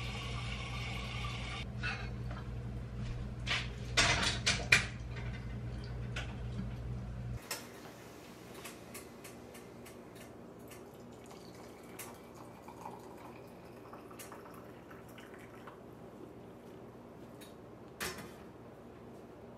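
Kitchen tap running for about two seconds, then clinks and knocks of a kettle and dishes at the sink, loudest about four to five seconds in. After that, quieter light ticks as hot water is poured from an enamel kettle into a ceramic mug, with one sharp knock near the end.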